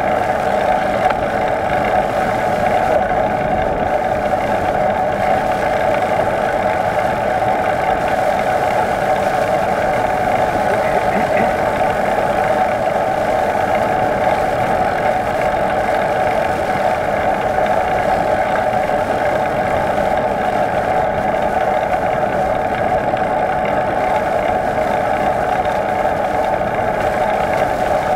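Steady hum from the bike as it rides along, an even, unchanging drone with no rises or falls in pitch or loudness.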